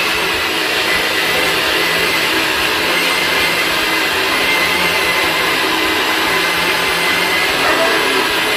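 NutriBullet blender motor running at full speed, blending banana, egg, milk and oats into pancake batter: a loud, steady whirring rush with a faint high whine and no let-up.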